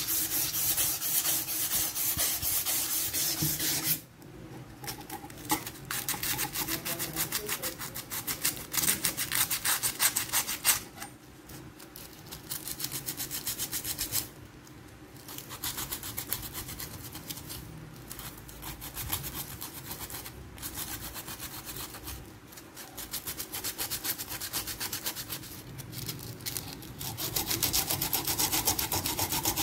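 Rusty steel parts of an old adjustable spanner being sanded by hand with abrasive paper: fast back-and-forth rubbing strokes. The rubbing is loud and unbroken for about four seconds, then comes in uneven spells with brief pauses, and grows loud again near the end.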